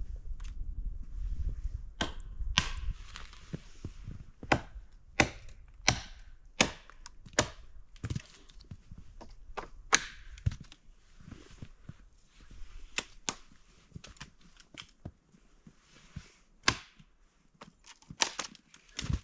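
A series of sharp knocks or cracks, coming about every three-quarters of a second for several seconds, then more irregularly, with a low rumble at the start.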